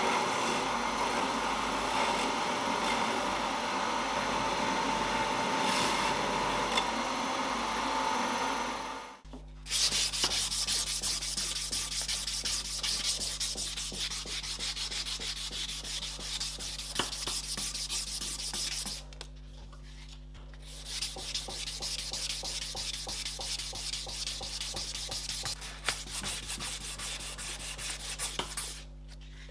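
A belt grinder runs with a knife blade held against the belt. About nine seconds in it gives way to hand sanding: a strip of abrasive cloth pulled back and forth around a knife handle in quick rubbing strokes, pausing briefly twice.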